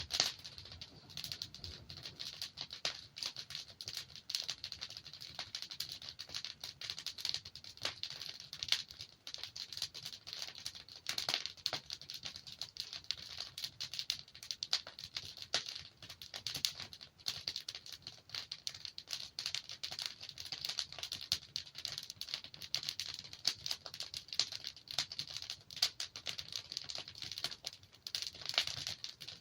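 Wood fire crackling steadily, with many small pops and snaps of burning logs over a soft hiss.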